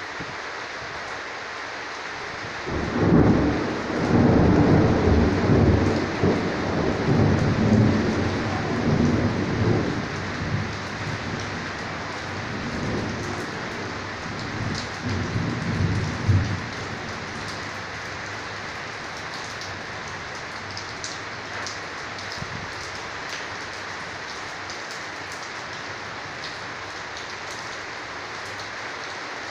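Steady rain hissing, with a long rolling rumble of thunder that starts about three seconds in, swells and dies away after about sixteen seconds. Later, individual raindrops tick now and then over the rain.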